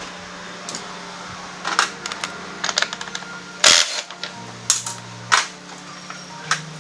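Irregular clicks, knocks and clatter of tools and parts being handled during motorcycle tyre work, over a steady low hum, with one short louder burst a little past halfway.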